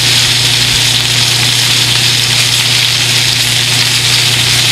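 Strip steaks searing in a cast-iron skillet over a gas burner at full heat, sizzling in a steady, loud hiss, the sign of a pan hot enough to sear rather than stew the meat. A steady low hum runs underneath.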